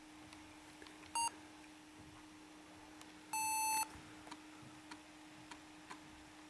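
Motherboard's PC speaker beeping: one short beep, then about two seconds later a longer beep of the same pitch.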